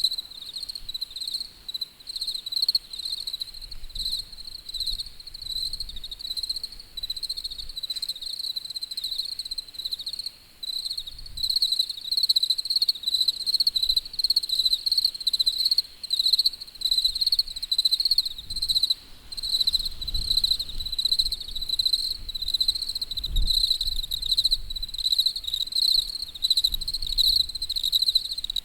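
Crickets chirping steadily, a continuous rapid pulsing of high chirps that keeps up throughout.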